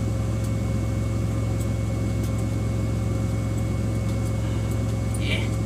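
Semi truck's diesel engine idling steadily, heard from inside the cab as an even low hum. A brief short noise sounds about five seconds in.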